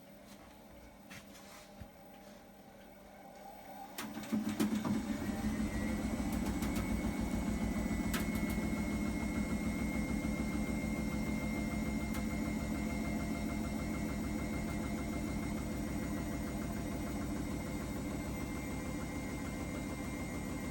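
Hotpoint washing machine starting up about four seconds in with a clunk, after a few faint clicks: its motor whine rises over a couple of seconds and then holds steady over a fast, even churning rhythm as the machine runs on.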